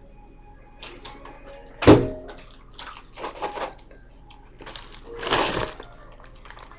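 A sharp knock about two seconds in, then the crinkling rustle of a paper microwave popcorn bag being handled and pulled open, with a longer, louder rustle near the end.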